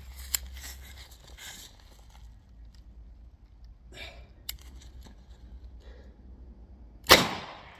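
Light metallic clicks and rattles as a Smith & Wesson 686 revolver is reloaded and readied, then one loud .357 Magnum gunshot about seven seconds in, with a short echoing tail.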